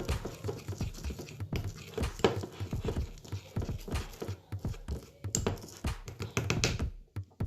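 Slime ingredients being stirred and worked in a bowl: a run of irregular sticky clicks, taps and squelches.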